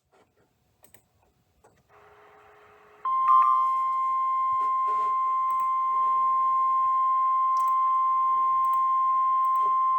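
NOAA Weather Radio warning alarm tone: a single steady, high 1050 Hz tone that starts after about three seconds of near silence and holds unbroken. It signals that a severe thunderstorm warning message follows.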